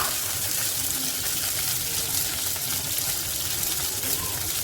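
Tamarind water bubbling and sizzling in a hot pan on a gas stove: a steady hiss with faint crackles.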